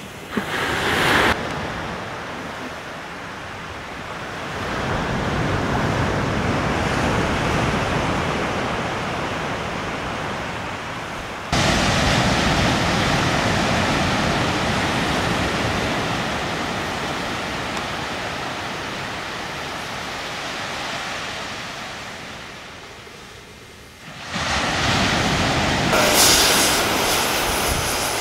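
Steady rushing surf noise on a beach, swelling and easing slowly, with two abrupt jumps in level about twelve and twenty-four seconds in.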